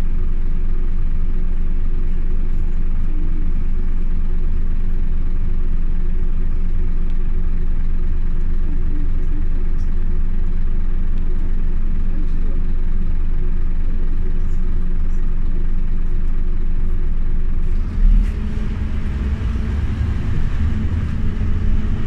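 Scania OmniLink CK270UB city bus heard from inside the cabin: a steady low engine hum. About 18 seconds in, a knock is followed by a louder, rougher rumble.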